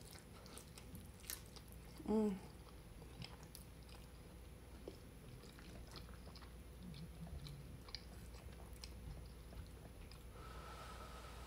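Close-miked chewing of a mouthful of lasagna, with small wet mouth clicks. About two seconds in there is a short hummed "mm", the loudest sound, and near the end a faint squeak.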